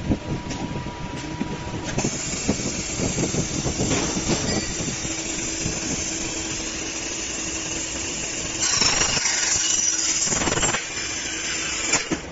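Wire loop making machine running, its rollers bending aluminium alloy wire into rings with a steady mechanical clatter and clanks. A louder hissing rush lasts about two seconds past the middle, and sharp clicks come near the end.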